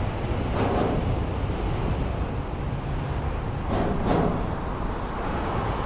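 Low, steady rumble of a subway train approaching on open track, with two brief swells of noise about half a second and four seconds in.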